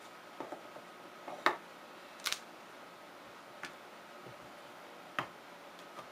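Scattered light knocks and taps of a soap loaf and bars being handled on a tabletop and against a wooden loaf mold, about six in all, the loudest about a second and a half in and another near the end. Under them runs a steady hum from an air conditioner.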